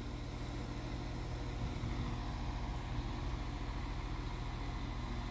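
Northern Ireland Railways diesel multiple unit standing at the platform with its engines idling, a steady low hum.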